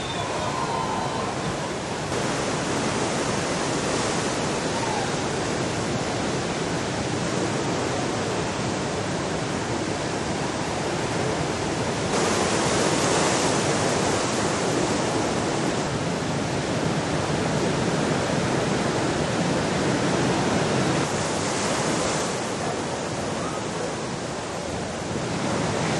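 Very large ocean waves breaking: a continuous roar of surf and whitewater. The level steps up and down abruptly a few times, louder from about halfway through.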